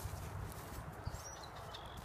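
Video-game outdoor sound: soft irregular low thuds, like footsteps on the ground, with a brief high bird-like chirp about a second in and a fainter one near the end.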